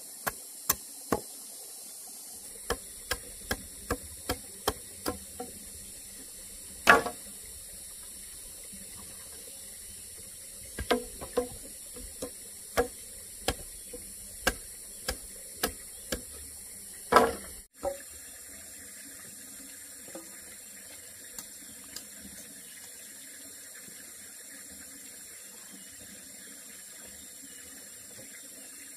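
A series of sharp knocks, about one or two a second in uneven runs with short pauses, the loudest two about a third of the way in and just past halfway. After that the knocking stops and a steady faint hiss carries on.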